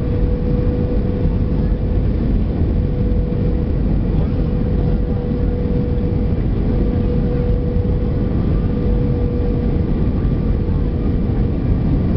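Steady cabin noise inside an Airbus A320-200 in descent: a dense, even rumble of engines and rushing air, with a thin steady tone running over it that fades about three-quarters of the way through.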